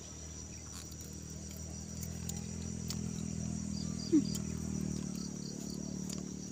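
Crickets keep up a steady high drone while fried breadfruit chips are chewed with faint crunches close by. A low hum swells in the middle and then eases off.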